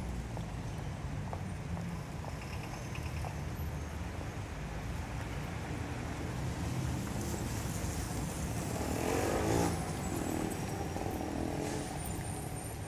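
Road traffic running steadily, with one vehicle passing close about nine seconds in, the loudest moment.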